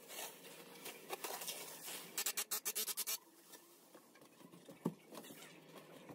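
Thin plastic masking sheet rustling and crinkling as it is pulled off the wall and bunched up, with a quick run of sharp crackles about two seconds in. Quieter rustling follows, with a single tap near the end.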